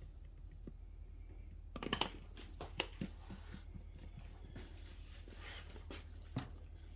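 Faint handling noises at a cutting board: a cluster of clicks and knocks a little under two seconds in, then scattered smaller clicks and rustles, over a steady low hum.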